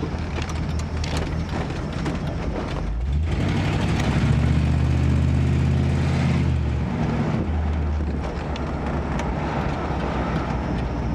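1967 Buick Riviera's V8 engine running with road noise while driving, heard from inside the car. The engine grows louder from about three seconds in to about seven seconds in, as if pulling under load, then settles back.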